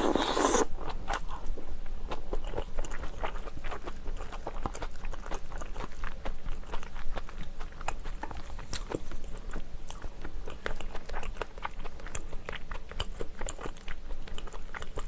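Close-miked chewing of a mouthful of rice and tuna kimchi stew: a steady run of small, wet clicks and smacks. A short louder noise comes right at the start.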